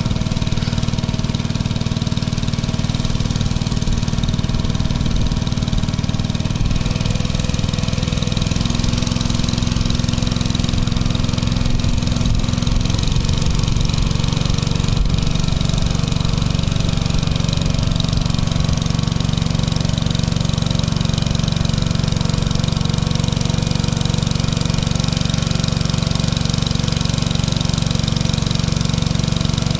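Boat motor running steadily while under way, its note shifting slightly about a third of the way in.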